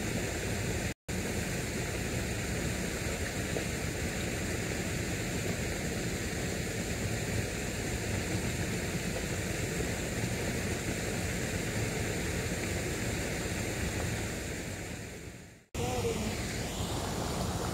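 Steady, even outdoor rushing noise with no distinct events. It breaks off for a moment about a second in, then fades and cuts out near the end.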